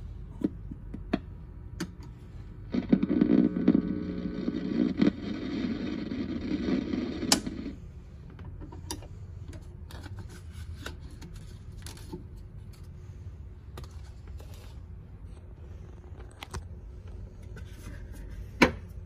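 Vintage Victor portable record player being handled, with sharp clicks and knocks from the tonearm, lever and record. About three seconds in, sound from the record plays through its built-in speaker for roughly five seconds, then cuts off suddenly. A louder single click comes near the end.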